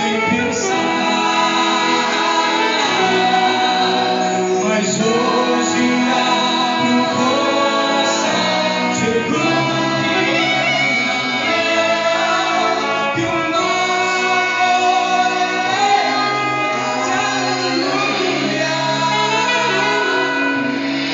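Several men's voices and a woman's voice singing a slow song together in harmony, with saxophone and band accompaniment.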